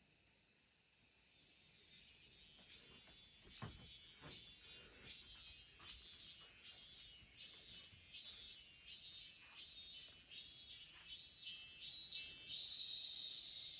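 Insects chirring with a steady high-pitched drone, joined a few seconds in by a regular chirp about twice a second that grows louder toward the end.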